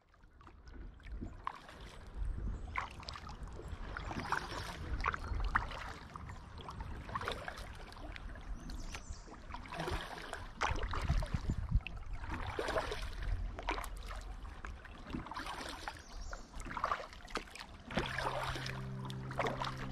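Kayak paddle strokes in calm water, each dip and pull a short splash with drips, coming about every second or two over a low rumble. Music fades in near the end.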